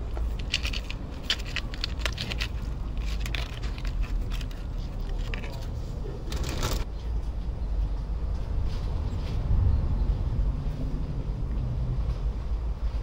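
Wet canned cat food being scraped with a utensil into a foil tray and its packaging handled: a run of quick scrapes and crackles, with a longer rasp about six and a half seconds in. After that the handling stops and a low steady rumble is left.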